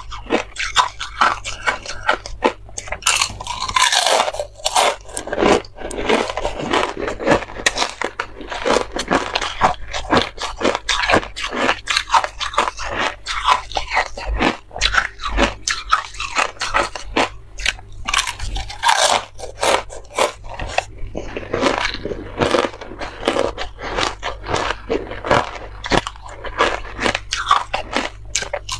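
Thin discs of ice being bitten and chewed: a continuous run of sharp, irregular crunches and cracks.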